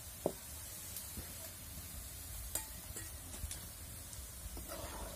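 Metal slotted spoon clicking against a steel bowl and an iron karahi as fried onions are lifted out of hot oil, over a faint steady sizzle of the frying oil. The sharpest click comes just after the start, another about halfway through.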